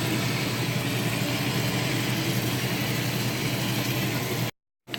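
Chicken pieces searing skin side down in a hot pan, a steady sizzle, with a low hum underneath; the sound cuts out briefly near the end.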